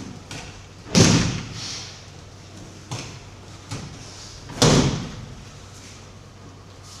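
Bodies landing on tatami mats in aikido breakfalls from throws: two heavy thuds, about a second in and again some three and a half seconds later, with two lighter knocks between them.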